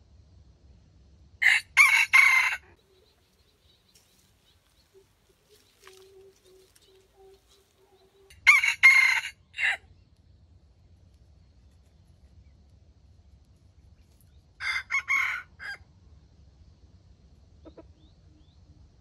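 Wild junglefowl rooster crowing three times, several seconds apart. Each crow is a short, clipped call of about a second, broken into a few quick syllables.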